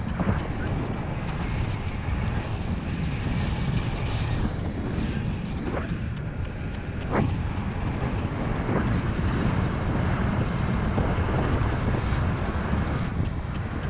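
Wind noise from the airflow of paraglider flight buffeting the camera microphone: a steady rumble strongest in the low end, with a few faint short gusts.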